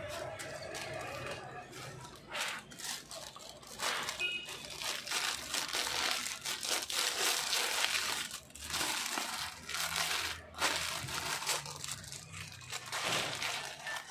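Plastic packaging crinkling as it is handled: a clear plastic bag and a grey plastic mailer bag, rustling in irregular bursts with short pauses, starting about two seconds in.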